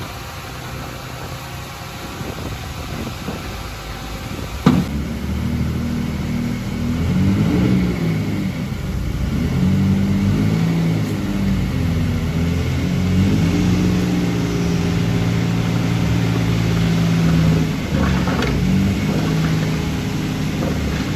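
Diesel engine of heavy earthmoving machinery working under load. It runs lower at first, then revs up and down and holds a steady higher pitch, with a sharp metallic knock about five seconds in and a few knocks near the end.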